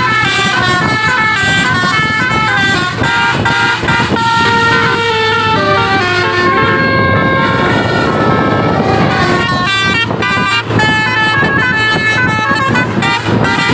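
Intercity bus's 'telolet basuri' musical horn playing a tune, its notes stepping quickly up and down in pitch. About halfway through, a rushing noise rises under the notes for a few seconds.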